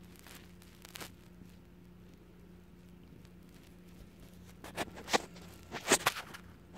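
Domestic cat purring low and steady, the purr fading after about five seconds; a few sharp knocks and scuffs close to the microphone come about five and six seconds in.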